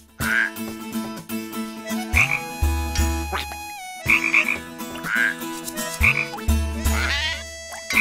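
Cartoon frog croaking: two long, deep, low croaks about four seconds apart.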